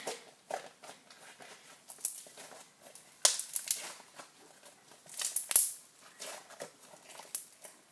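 Multicoloured slime being kneaded and mixed together by hand, making irregular sticky clicks, squelches and crackles, with louder bunches of them about three seconds in and again around five seconds.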